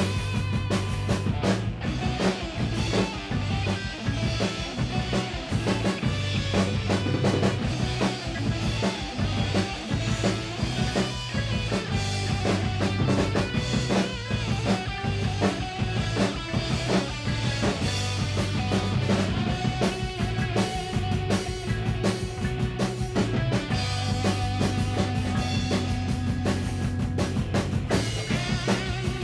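Acoustic drum kit played along with a rock instrumental recording: rapid drum and cymbal hits over a steady low bass line.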